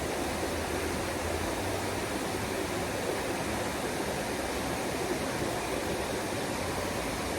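Steady rushing of a stream of water flowing over rocks, even and unbroken.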